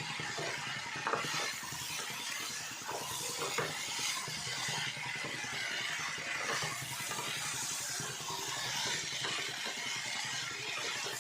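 Vegetables sizzling in a pan, with a steady hiss and a few clicks of a spoon against the pan as it is stirred.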